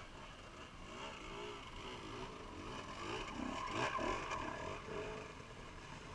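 Enduro dirt bike engine approaching with the throttle rising and falling. It is loudest about four seconds in as it passes close by, then fades away.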